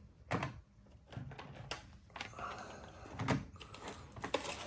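Hard plastic PSA graded card slabs clacking as they are handled, lifted out of a box and set down, about five knocks with the loudest a little past halfway, with paper rustling between them.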